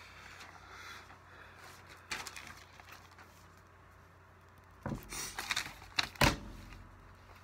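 A spiral-bound textbook rustling as it is handled, then a cluster of knocks and thumps as it is put down, the loudest a single thump a little after six seconds in.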